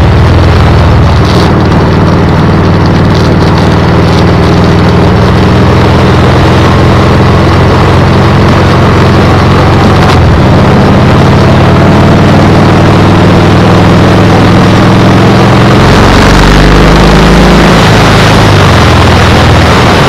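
Motorcycle engine running steadily under way, with heavy wind noise on the camera microphone. The engine note drops and changes about sixteen seconds in, then settles again near the end.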